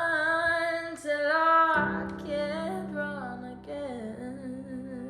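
Female voice singing a held, wordless line over acoustic guitar in the closing bars of a song. About two seconds in the accompaniment drops to a lower sustained chord and the melody steps downward.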